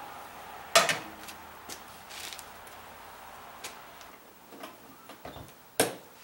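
Sharp metal knocks and clicks from a stainless steel pot and the metal door of a cabinet smoker as the pot is set down on top and the door is shut. There are two loud knocks, about a second in and near the end, with lighter clicks between.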